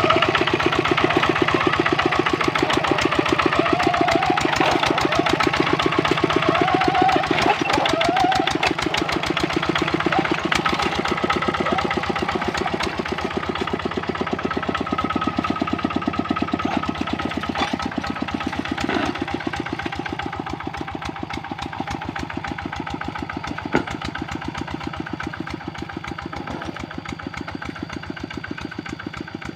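Kubota RD65 single-cylinder diesel engine on a hand tractor running steadily with a fast, even chug, growing slowly fainter over the second half. A single sharp click sounds about three quarters of the way through.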